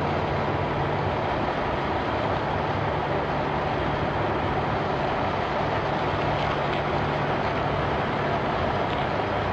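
Semi truck's diesel engine running steadily at low speed as the tractor-trailer manoeuvres, a constant low drone.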